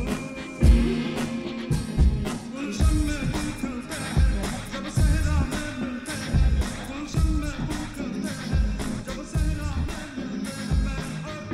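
Music with singing over a heavy, steady beat.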